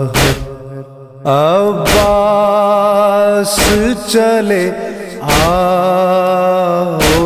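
A man's voice reciting a Muharram noha (lament) in long, held, wavering lines. The voice dips briefly about a second in, then rises into a new line. A sharp beat keeps time about every second and three-quarters.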